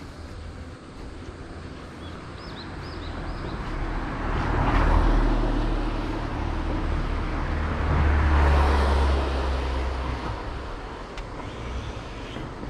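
Two motor vehicles driving past one after the other, the sound of each swelling and fading: the first about five seconds in, the second a few seconds later.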